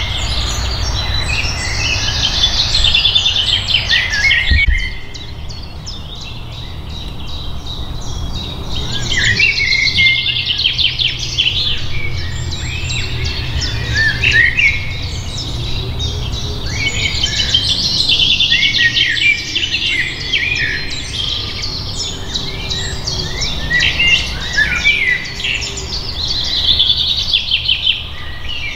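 Songbirds singing and chirping almost without pause: quick high twitters and trills, over a low steady rumble. The sound changes abruptly about five seconds in and again near the end.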